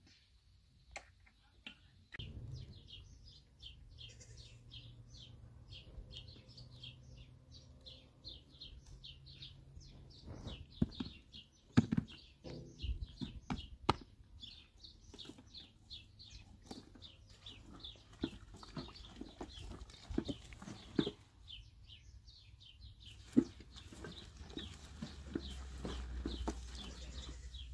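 Small birds chirping rapidly and continuously, several short high calls a second, with a brief pause near the end. Over it come occasional sharp knocks and wet handling noises from raw wool being kneaded in a plastic tub of water.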